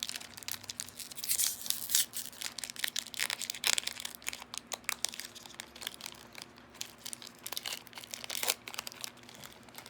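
Foil booster pack wrapper crinkling and being torn open by hand, an irregular crackle loudest in the first few seconds with another sharp crinkle near the end.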